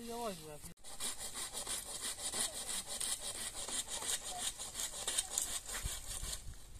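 Hand saw cutting firewood in quick, even back-and-forth strokes. The sawing stops near the end.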